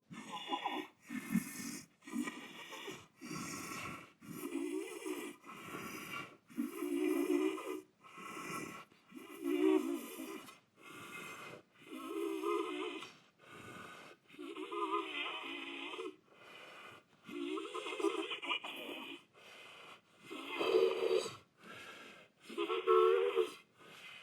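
Monster's dying breaths, as a creature sound effect: a long run of rough, wheezy inhales and exhales, about one breath a second, with short pauses between them.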